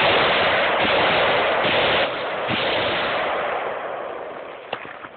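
AR-15 rifle fire: a sudden loud shot right at the start, the shots blurring into a loud roar for about two seconds that then fades away over the next few seconds.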